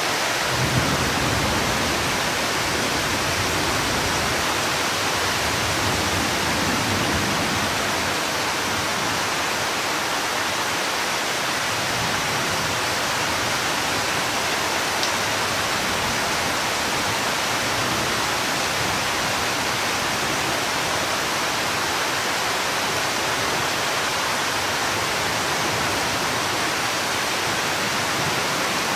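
Steady hiss of heavy rain in a thunderstorm, with low rumbles of thunder about a second in and again around six seconds in.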